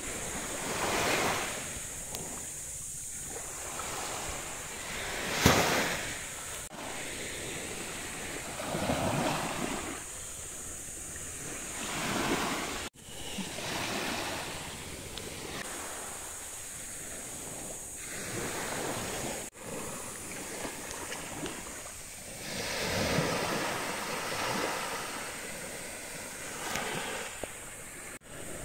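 Small waves washing up on a sandy beach, the surf swelling and fading every few seconds, with one short sharp louder rush about five and a half seconds in.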